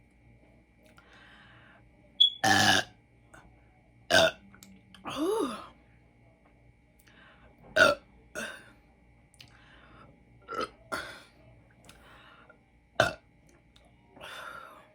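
A woman belching again and again, brought on by gulping carbonated soda. There are about eight short burps, the loudest a couple of seconds in, and a longer one around five seconds in whose pitch bends.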